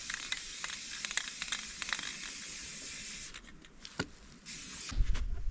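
Aerosol spray-paint can spraying in a steady hiss for about three seconds, then stopping; a sharp click follows, then a few low knocks near the end.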